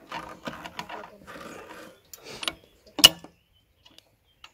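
Pliers working a pin out of a walk-behind tractor's steel wheel hub: scattered metallic clicks and scraping, then one sharp loud metal click about three seconds in.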